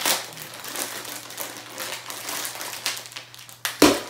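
Shiny foil packet being crumpled and wrenched open by hand: an irregular crinkling crackle, with one much louder crackling burst near the end.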